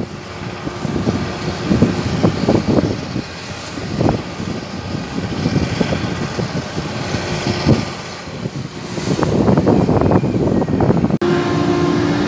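Bulk carrier's deck cranes working coal grabs: machinery running with irregular clanks and rattles. After an abrupt cut about eleven seconds in, a steadier machine hum with a few held tones.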